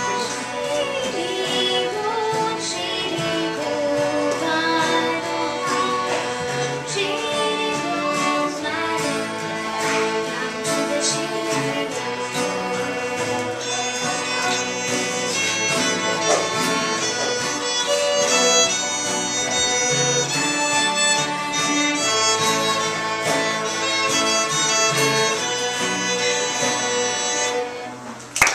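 Several fiddles playing a traditional old-time tune together over acoustic guitar accompaniment, at a steady level. The tune winds down and stops just before the end.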